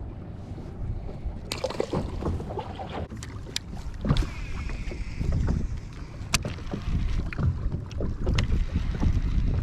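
Wind rumbling on the microphone and water moving around a fishing kayak on a lake, with scattered sharp clicks and knocks.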